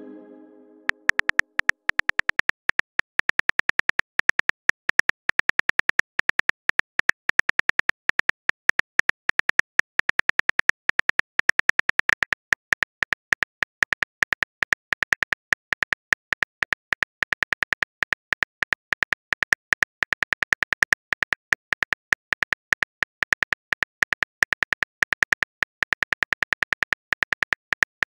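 Rapid run of phone-keyboard typing clicks, a short synthetic tick about seven or eight times a second, starting about a second in and going on without a break.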